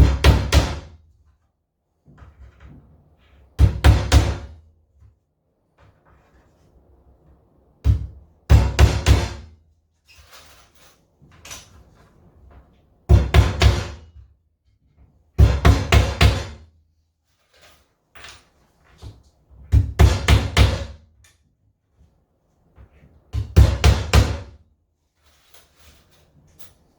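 Hammer driving 2-inch galvanized nails into the timber of a wooden hive box, in about seven bursts of several quick strikes, with pauses of a few seconds between bursts.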